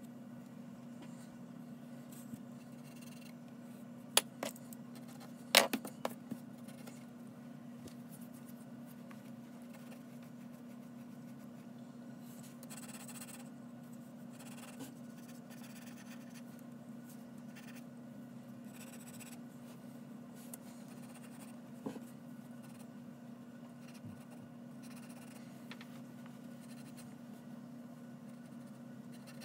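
Graphite pencil sketching on paper, with soft scratching strokes over a steady low hum. A few sharp taps stand out, a cluster about four to six seconds in and one more about twenty-two seconds in.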